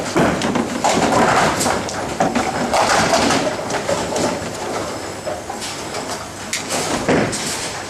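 A bowling ball rumbling down a wooden lane and knocking pins over, set against the steady rolling and clattering of a busy bowling alley.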